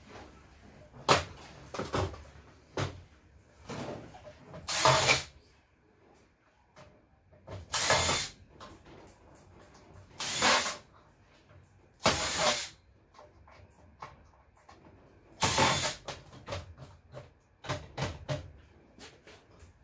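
Cordless power screwdriver run in about six short bursts, backing screws out of an electronic equipment chassis. Between the bursts come sharp clicks and knocks of screws and metal parts being handled.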